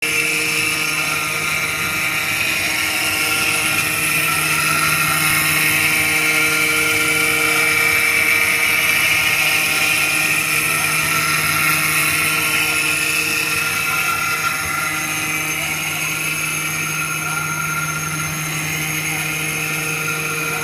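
6090 stone CNC router cutting a ring into a stone slab: the spindle runs steadily, a constant hum with several held tones over a grinding hiss from the bit in the stone.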